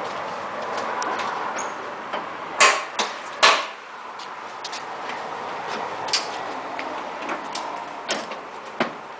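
Sharp clicks and knocks of a small tractor's hood and panels being handled and opened, three loud knocks close together about three seconds in, over a steady background hiss.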